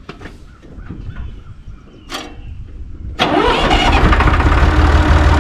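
Farm tractor engine starting about three seconds in, then running loud and steady with a deep rumble. Before it, only a few faint knocks and rustles.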